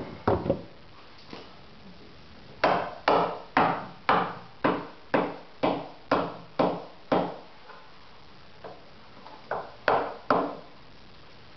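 Sharp tool knocks on a fiberglass mold: about ten evenly spaced strikes, two a second, then a pause and a few more. This is the mold being knocked apart to free a molded nacelle part.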